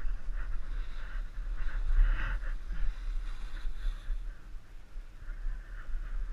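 Wind buffeting the microphone of a body-worn action camera during a downhill ski run, a steady low rumble, with the hiss of skis sliding over packed groomed snow that swells and fades.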